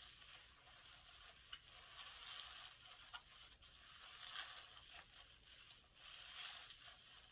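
Soapy sponge soaked in foaming hand soap being squeezed by hand: a soft, wet crackling hiss of lather with a few tiny pops, swelling with each squeeze about every two seconds.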